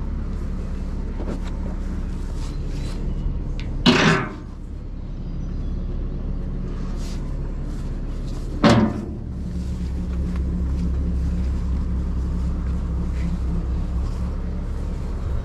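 A motor vehicle engine running steadily nearby with a low, even hum. Two short, loud noises break in about four and nine seconds in.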